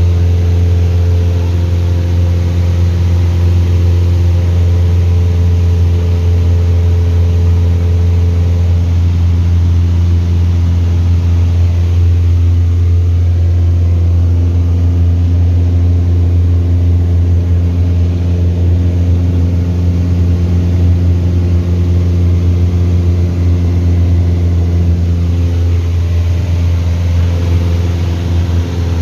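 Steady drone of a light aircraft's piston engine and propeller at cruise, heard from inside the cabin.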